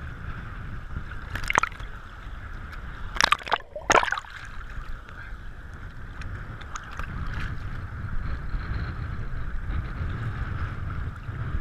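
Seawater sloshing and lapping around a waterproof camera housing at the surface, over a steady low rumble. There are sharp splashes about a second and a half in and again around three to four seconds in, as the water washes over the housing.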